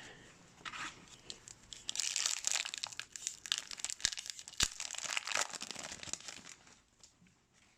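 A plastic trading-card pack wrapper being torn open and crinkled in the hands, with a couple of sharp crackles partway through.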